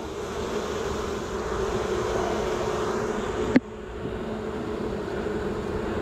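Swarm of honeybees buzzing steadily around an opened hive, a little noisy because they are agitated by the inspection. A single sharp knock about three and a half seconds in, after which the buzzing is slightly quieter.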